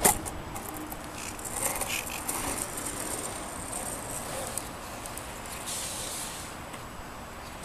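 A skateboard set down on asphalt with a sharp clack at the start, then its urethane wheels rolling and carving over the asphalt in a steady rough hiss that swells and fades as the board turns.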